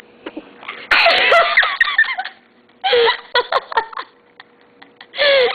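A child's sneeze, a sudden burst about a second in, breaking into laughter and squeals, with further short bursts of laughing about three seconds in and near the end.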